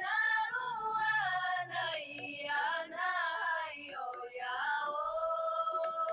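A female voice singing a slow melody in phrases, gliding between held notes, with the last note held steadily from about five seconds in.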